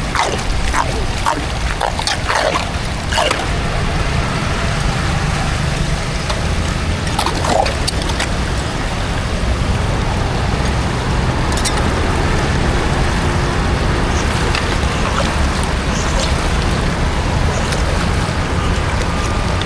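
Steady rush of flowing water draining through a cleared street drain, with a few short sharp sounds in the first few seconds and again about seven seconds in.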